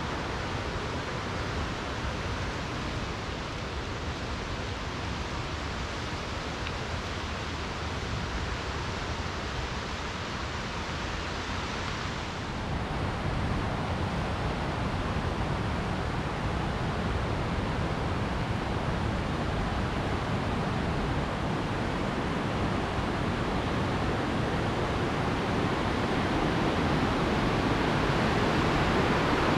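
Wenatchee River rushing, running high with spring run-off: a steady whitewater rush that grows louder over the second half.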